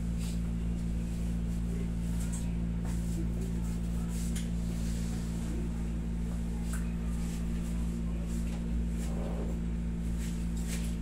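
Steady low hum of a room air conditioner, with a few faint, short clicks and rustles scattered through it.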